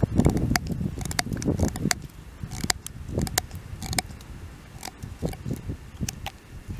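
Knife cutting a notch into a bamboo tube on a wooden stump: a run of irregular sharp clicks and dull knocks as the blade bites and presses into the bamboo.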